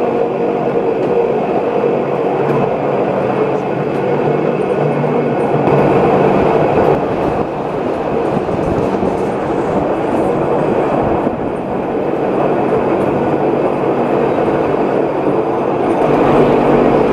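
Pilatus Railway electric rack railcar climbing the steep track, running steadily: rumble of the wheels and rack gearing with a steady motor whine, heard from an open window of the car.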